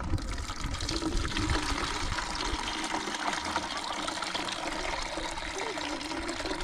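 Water pouring steadily from a tilted cooking pot into a plastic bucket as a pot of green wild figs is drained.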